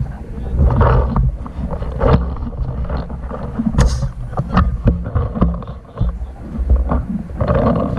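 Wind buffeting and handling rumble on a hand-held or body-worn camera microphone as the wearer moves, with scattered sharp pops and clicks, one loudest about halfway through.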